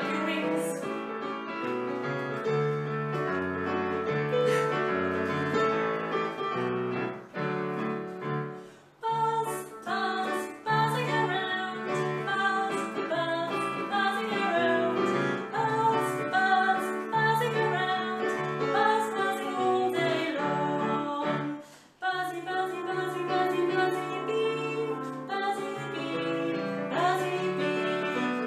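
A woman singing a lively children's song, accompanied by chords and a bass line on an electric keyboard. The music breaks off briefly twice.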